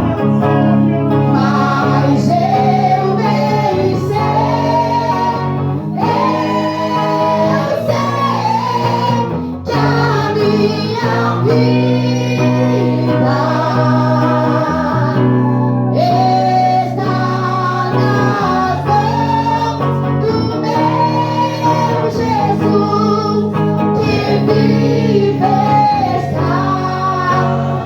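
Live gospel worship song: a singer's melody over guitar and long held bass notes.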